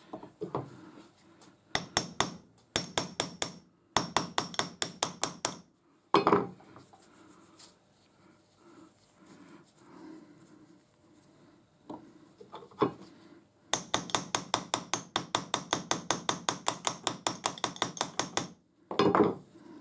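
Small hammer tapping rapidly on the steel body of a lathe live centre, about five light taps a second in several runs, with a couple of heavier knocks. The parts are being knocked together to seat a newly fitted bearing.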